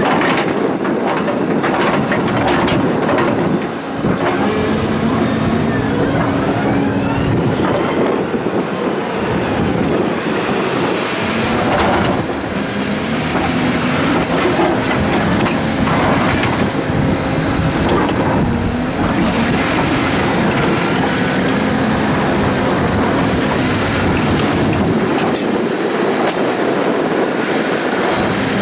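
Komatsu excavators working rock: diesel engines running steadily under load, with scattered sharp knocks of boulders being set in place and metallic squeals from the machines now and then.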